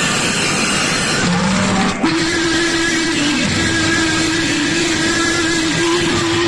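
Loud, distorted devotional music from a PA sound system, with a long held keyboard note coming in about two seconds in after a brief break.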